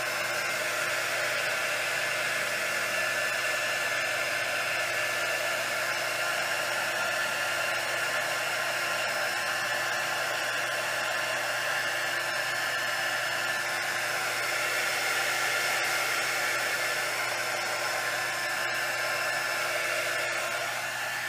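Small craft heat gun running steadily, a constant whir with a few held tones, blowing hot air over wet epoxy resin to make the white resin web and lace like sea foam.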